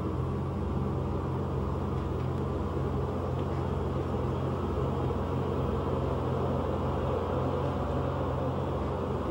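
Steady low rumble with a deep hum beneath it and a light hiss on top, unchanging throughout.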